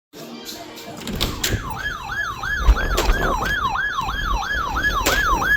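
Siren wailing in a fast, repeating sweep, falling then snapping back up about two and a half times a second, starting about a second and a half in. Scattered clicks and a low rumble run underneath.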